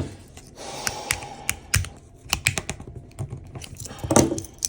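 Metal clicks and gritty scraping from a Gerber Armbar Slim Drive multitool as a folding implement is pried open and worked on its pivot, which grinds "gravelly" even after oiling. A louder thump comes about four seconds in.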